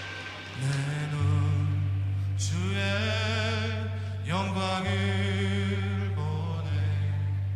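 Slow church worship backing track with the piano part left out, in G at 65 BPM: sustained chords swelling in over a held low bass note.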